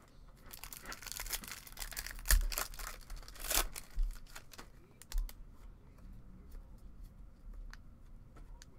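Foil wrapper of a Topps baseball card pack being torn open and crinkled, with the loudest crackles around two and three and a half seconds in. Then quieter scattered clicks as the stack of cards is handled.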